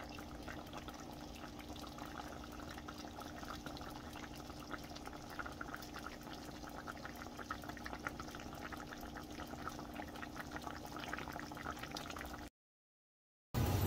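A pot of coconut-milk chicken stew bubbling at a simmer: many small pops over a faint steady hum. It cuts off suddenly about a second before the end.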